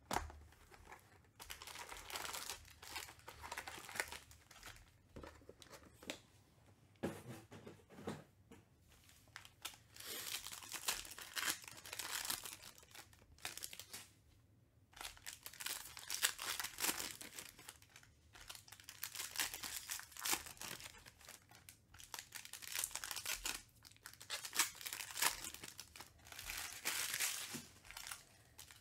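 Foil wrappers of trading-card packs (2021 Panini Chronicles Baseball) being torn open and crinkled by hand, in repeated irregular bursts of rustling.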